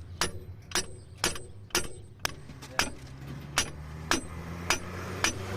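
Hammer striking metal in a steady series of about ten blows, roughly two a second, each with a short metallic ring, over a steady low hum.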